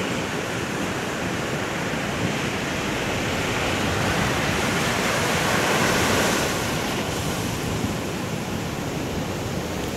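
Ocean surf breaking and washing up the beach, a steady rush that swells louder about four to six seconds in.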